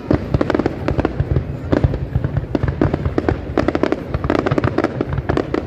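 Aerial fireworks going off in a dense, continuous barrage of bangs and crackles, several reports every second.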